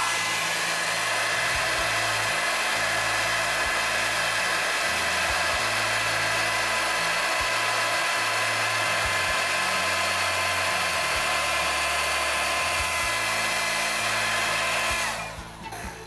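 Xiaomi Mi Ionic hair dryer (CMJ01LX3) running steadily at its second, higher speed: a rush of blown air with a high motor whine over it. It is switched off about a second before the end.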